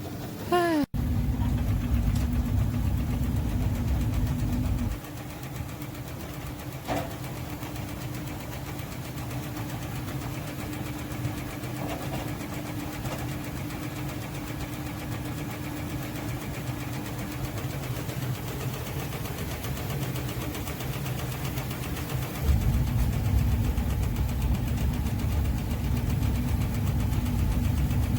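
Apple-mill machinery running with a steady motor hum, rising to a much louder low rumble in the first few seconds and again from about 22 seconds on.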